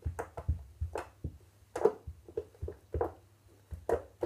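Homemade slime being squished and poked by hand: an irregular run of short sticky clicks and pops, about three a second.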